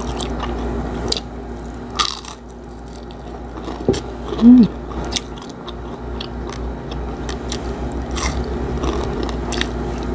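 Close-miked eating: crunchy bites and chewing of crispy fried milkfish (bangus), with a few sharp crunches spread through. A short, loud hum rises and falls near the middle.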